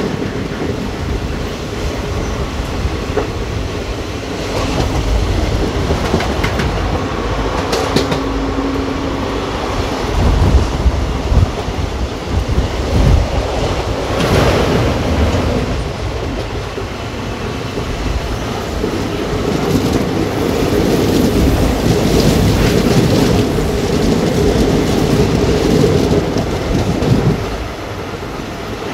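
Indian Railways express train running on the track, heard from on board: a steady rumble of wheels on rails with the clickety-clack of rail joints and a steady hum, plus a louder rush of noise about halfway through.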